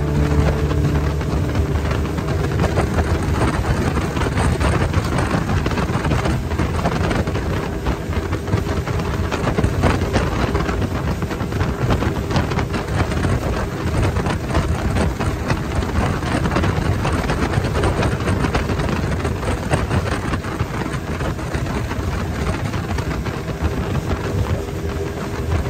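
A river speedboat under way at speed: steady engine and water noise from the hull, with heavy wind buffeting the microphone.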